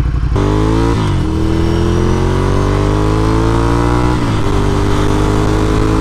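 Ducati Scrambler's air-cooled V-twin running through an aftermarket Delkevic slip-on exhaust, pulling hard from a stop. The exhaust note climbs, dips at an upshift about a second in, climbs for about three seconds more, and dips again at the next upshift near four seconds before holding steady. It is louder than stock, a sound the rider likes.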